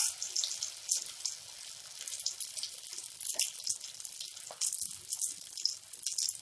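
Hot oil sizzling and crackling around batter-coated bread-paneer pakora balls deep-frying in a kadhai: a steady fizz with many small sharp pops.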